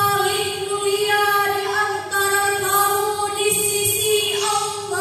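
A girl singing long, held melodic phrases, with breaks about two seconds in and again near four and a half seconds.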